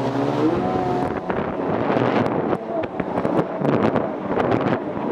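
Jet ski engine running, its pitch rising in the first second, then mostly covered by wind buffeting the microphone, with many sharp knocks.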